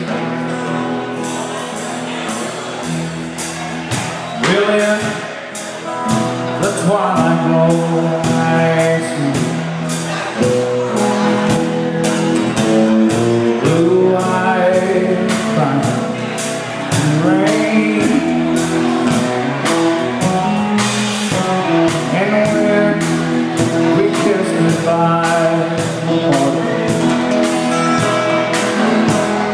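Live band playing amplified through a PA: a male lead singer with acoustic guitar, electric guitars, bass guitar and a drum kit keeping a steady beat. The band plays instrumentally at first, and the singing comes in about four seconds in.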